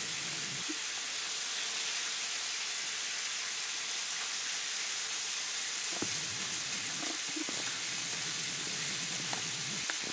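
Cod frying in a pan: a steady sizzling hiss, with a few faint clicks about six and seven seconds in and near the end.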